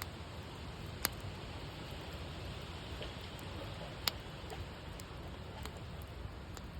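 Wood campfire burning with a steady hiss and faint crackles, and two sharp pops, one about a second in and another about four seconds in.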